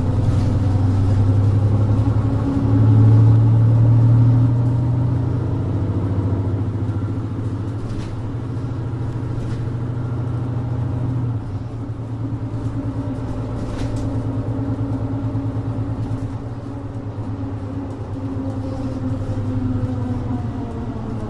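Mercedes-Benz Citaro 2G city bus's OM470LA inline-six diesel engine heard from on board, running with a steady low drone. It is loudest early on under load, then drops to a quieter, even drone about eleven seconds in, with a few faint clicks over it.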